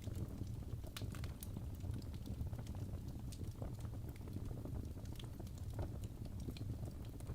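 Wood fire burning in a fireplace: irregular small crackles and pops over a steady low rumble of the flames.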